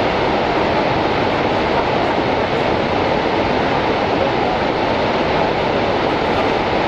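The American Falls at Niagara Falls: falling water in a loud, steady rush.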